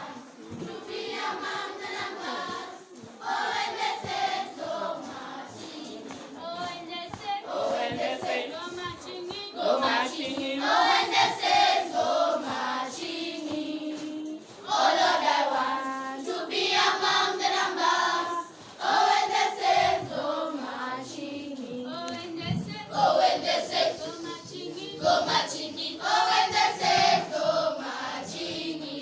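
A group of schoolchildren singing together as a choir, in continuous sung phrases.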